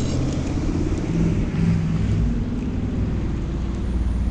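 An engine running nearby, a steady low rumble.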